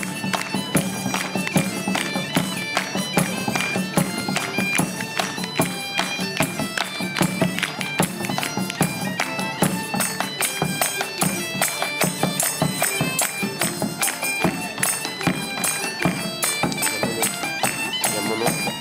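Medieval-style folk band playing: bagpipes sound a melody over a steady drone, driven by a busy beat on a large drum.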